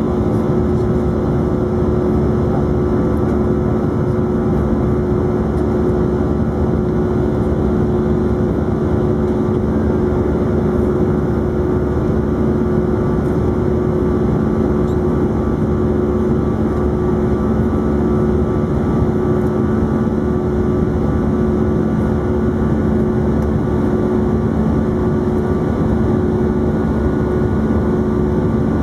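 Airbus A319 jet engines and airflow heard inside the cabin during the climb after takeoff: a loud, steady rush with a few held humming tones underneath, unchanging throughout.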